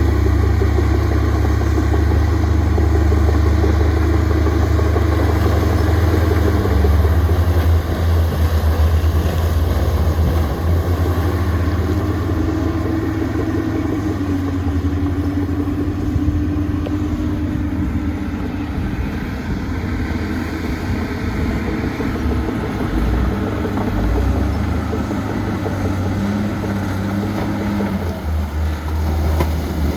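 Diesel engine of heavy earthmoving machinery running steadily, its pitch shifting partway through.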